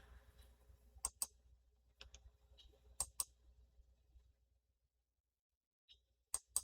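Computer mouse button clicking: three quick double-clicks a couple of seconds apart.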